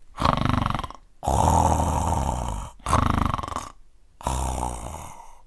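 A person snoring loudly: four snores in a row, each under a second to about a second and a half long, with short pauses between. This is snoring of the kind called sleep apnea.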